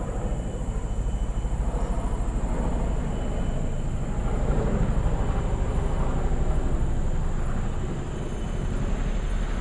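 Steady outdoor ambience dominated by a low, fluttering rumble over an even hiss, with faint steady high-pitched tones above it.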